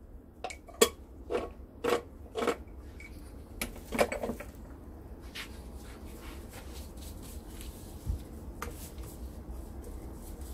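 Gloved fingers working cornstarch into fish steaks on a ceramic plate: about seven light clicks and knocks against the plate in the first four seconds, then soft rubbing with faint ticks.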